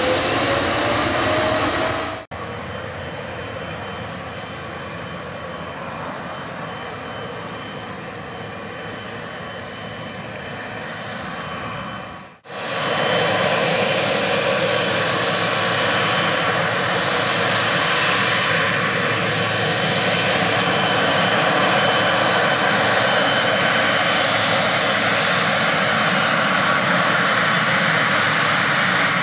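Airliner jet engines in three spliced stretches. A loud opening with a faint rising whine cuts about two seconds in to a quieter stretch of engine noise. About 12 s in, it cuts again to the steady, loud rumble and fan whine of a Boeing 777-300ER's GE90 turbofans as it taxis onto the runway.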